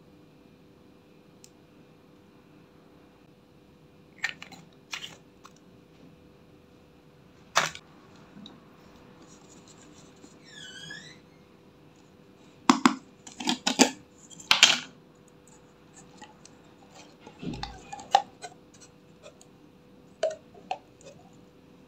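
Plastic makeup containers and a plastic jar being handled: scattered sharp clicks and knocks, with a dense run of clatter about halfway through and a few more near the end as the jar's screw lid is worked.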